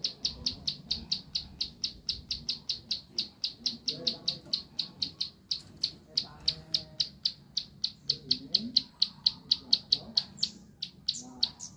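A small songbird calling a short, high note over and over, about four or five times a second, with a few higher notes near the end.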